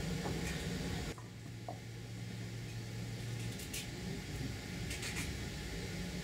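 Steady low room hum with a few faint short clicks. The background drops abruptly about a second in.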